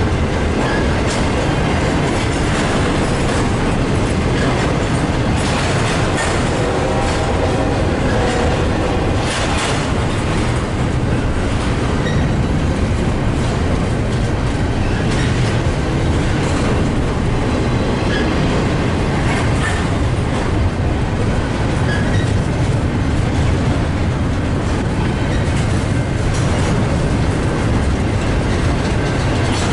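Train rolling past: a continuous rumble of steel wheels on rail with scattered clicks, typical of wheels crossing rail joints.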